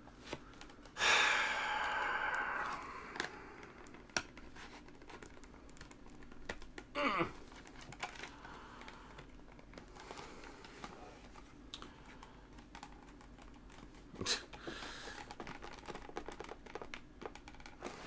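Fingers prying at the seams of a plastic external hard drive enclosure: scattered clicks, taps and scrapes of the plastic case, with one longer rushing noise about a second in.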